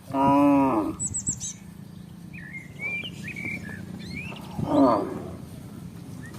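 Cattle mooing twice: a loud, slightly falling call at the very start, about a second long, and a shorter one about four and a half seconds in. Small birds chirp throughout.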